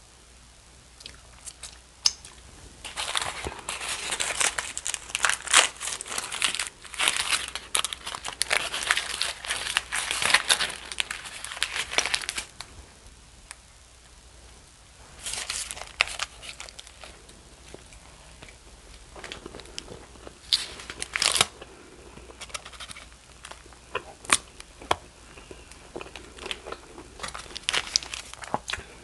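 Aluminium foil wrapping around a gyro crinkling and rustling as it is handled and peeled back, in a long stretch starting about three seconds in, then shorter bursts and scattered crackles.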